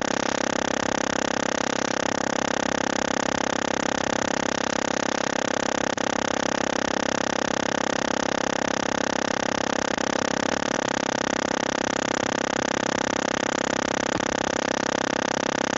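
Loud, steady electronic buzz on a call's audio feed, a dense droning stack of even tones with no speech through it, like someone drilling. It is the sign of an audio fault that the presenter puts down to her headset dying.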